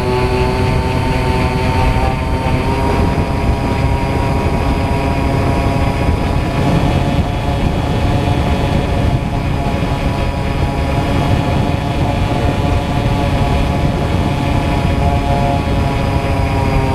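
RC airplane's motor and propeller, heard from the plane's onboard camera, running steadily at cruise with a continuous whine over a rush of air. Its pitch steps up slightly about two to three seconds in.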